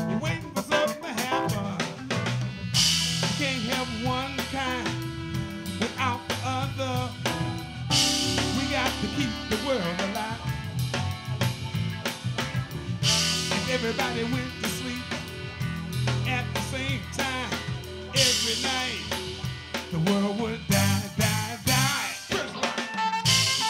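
Live funk band playing: drum kit with snare and cymbals, electric bass, electric guitar, keyboards and alto saxophone, taken from the soundboard. Cymbal crashes mark the groove about every five seconds.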